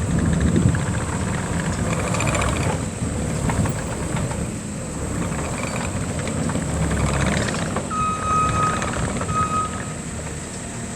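2017 New Holland C238 skid steer loader's diesel engine running, its sound rising and falling. Two beeps sound near the end, the first longer than the second.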